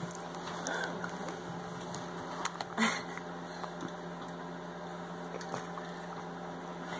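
Faint wet sucking and smacking of a baby gumming a chew stick, with one louder smack nearly three seconds in, over a steady low hum.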